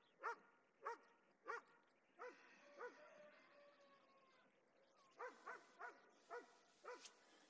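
A dog whining faintly in a string of short cries that rise and fall in pitch. Several come in the first half, a couple drawn out, then a pause, then a quicker run of yelps.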